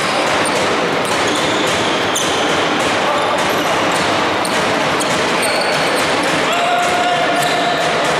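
Basketball game play on a hardwood court in a large hall: the ball bouncing and sneakers squeaking now and then, over a steady background of spectators' voices.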